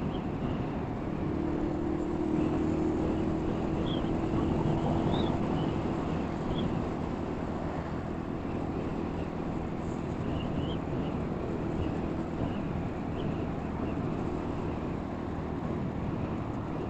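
Steady running noise of a vehicle travelling on a road: engine hum and tyre noise at an even speed.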